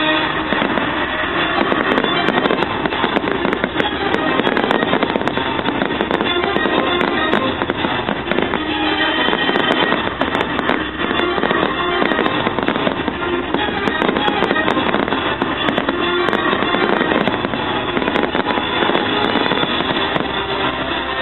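Fireworks display: aerial shells bursting and crackling densely and without a break, with music playing underneath.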